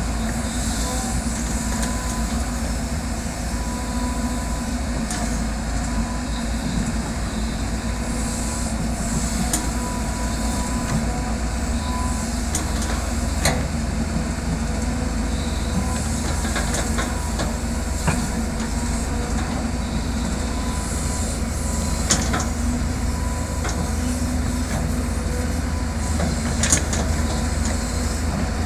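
Caterpillar excavator's diesel engine running steadily with a deep rumble, with a few sharp metallic clanks from the machine working.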